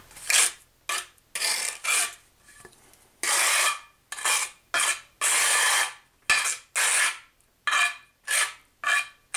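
Trowel scraping thinset mortar across the back of a ceramic tile, back-buttering it for a good bond: more than a dozen short scraping swipes, two of them longer and drawn out.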